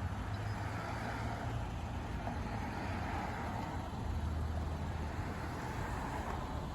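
Street traffic noise: a steady low engine hum under the rush of passing vehicles, swelling and easing a little.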